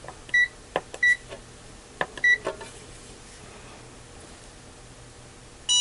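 Three short electronic beeps from a clamp meter as its buttons are pressed to switch it to inrush-current mode, with faint button clicks between them. Near the end, one short sharp snap as the battery spot welder fires a weld on a nickel strip.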